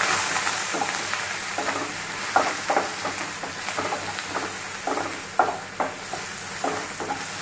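Sliced onions and curry leaves sizzling in hot oil in a kadai, the sizzle strongest as they go in. A wooden slotted spatula stirs them, scraping and knocking against the pan about once or twice a second.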